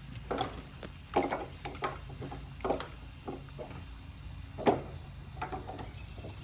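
Scattered knocks and clunks, one every second or so with the loudest near the end, as something is worked to snag the jumper cables, over a steady low hum.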